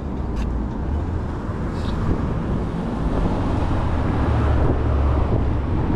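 Wind rushing over the microphone with a low rumble of tyres on the road while riding a Sailnovo folding e-bike. It grows steadily louder over the few seconds.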